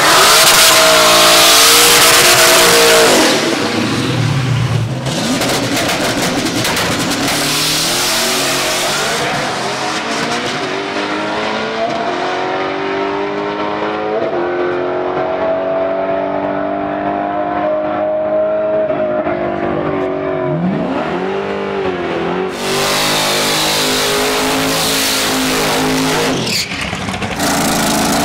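Boosted, manual-shift Pontiac GTO drag car launching hard off the line and running down the strip. The engine pitch climbs and drops back at each gear change while the car fades into the distance. From about 22 seconds in, another race car's engine is loud close by.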